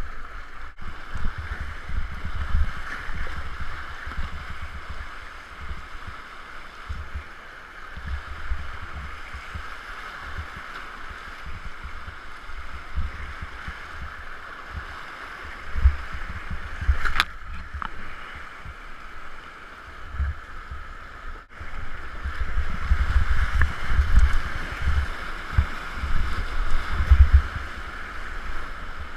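Whitewater rapids rushing around a kayak, with low buffeting thumps on the microphone that grow heavier in the last several seconds. There is one sharp click about seventeen seconds in.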